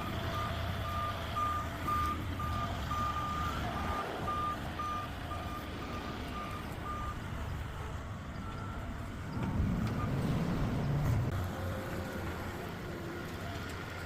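A construction machine's backup alarm beeping at one steady pitch, about two beeps a second, stopping about seven seconds in, over the machine's engine running. The engine swells louder about ten seconds in.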